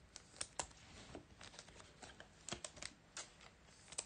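Faint, irregular clicks and light crinkles of trading cards and a clear plastic card sleeve being handled.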